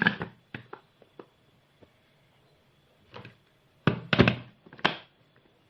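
Knocks and thuds of kitchen equipment being handled and set down: a few light clicks early on, then a cluster of louder knocks a little before four seconds in.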